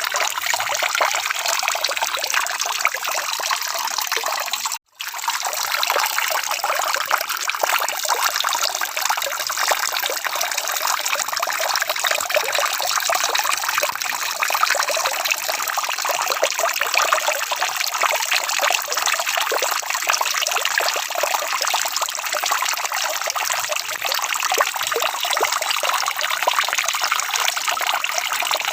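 Steady rain falling, an even dense patter of drops, with a brief dropout to silence about five seconds in.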